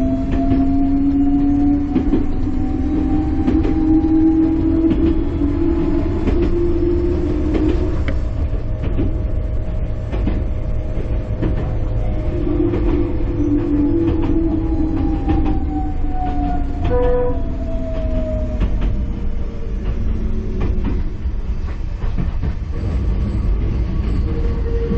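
Enoshima Electric Railway electric train running, heard from inside the car: a steady low rumble with wheel clicks over the rail joints. The electric traction motor whine rises in pitch over the first several seconds as the train gathers speed, then falls in pitch about two thirds of the way through as it slows. A brief pitched note sounds near the three-quarter mark.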